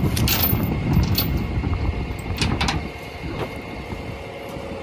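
Steel chain on the end of a tow strap clinking and rattling against the steel deck of a rollback tow truck bed as the strap is laid out: a few sharp clinks in the first three or four seconds. A steady low rumble runs underneath, strongest in the first three seconds.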